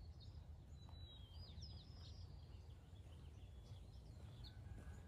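Near silence: faint chirping of small birds over a low, steady background rumble.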